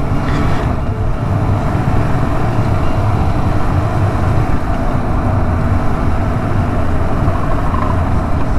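Yamaha MT-07 motorcycle riding at steady speed: its parallel-twin engine running steadily under a steady rush of wind and road noise.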